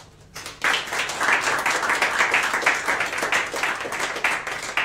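Audience of a few dozen people applauding, a dense run of clapping that starts about half a second in.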